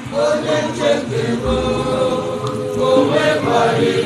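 A group of voices chanting together in long held notes.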